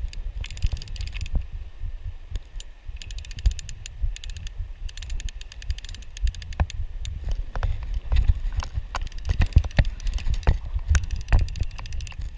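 Fly reel's click-and-pawl ratchet buzzing in quick runs of clicks as the handle is cranked to wind in line, several spells with short pauses between, over a low rumble.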